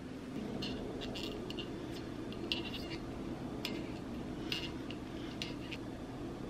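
Corkscrew being twisted into a wine bottle's cork: a string of short, faint squeaks and scrapes a second or so apart as the screw turns.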